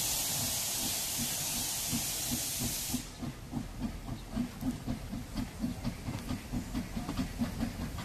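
Saddle-tank steam locomotive: a loud steady hiss of steam that cuts off suddenly about three seconds in, then a slow, regular chuffing of exhaust beats, about three a second, as the engine moves at low speed.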